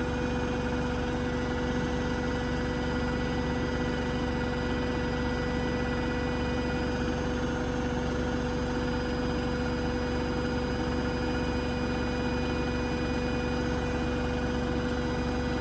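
Beko WTK104121A washing machine in a smooth high-speed 1400 rpm spin, its drum running at a steady speed: an even whine over a constant rush.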